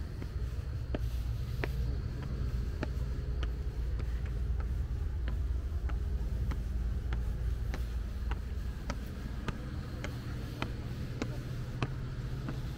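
Footsteps climbing granite stairs: sharp, even clicks a little under two a second, over a steady low rumble.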